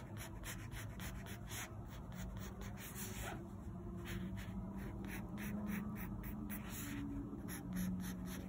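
Pencil scratching on paper in many quick, short strokes as fins are drawn.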